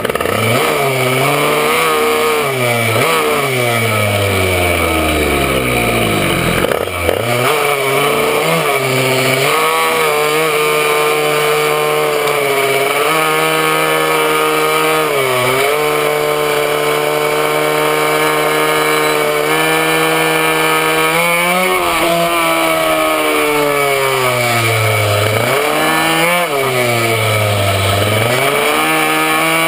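Minimoto's small two-stroke engine at racing speed, heard from on board. It revs up over and over at first, then holds a high steady pitch for a long stretch with short dips, and falls and rises again more deeply near the end as the bike slows for corners and accelerates out.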